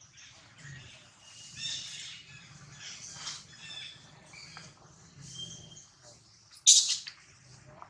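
Scattered high-pitched animal squeaks and chirps, with one short, much louder squeal near the end.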